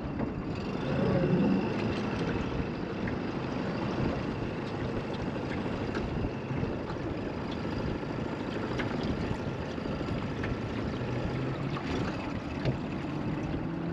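Steady wind rushing over the microphone aboard a small drifting boat, with a few light ticks and knocks.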